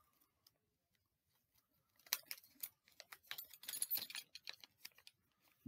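Faint clicks and light metallic rattling of a small metal badge and its pin being handled in the hands, starting about two seconds in.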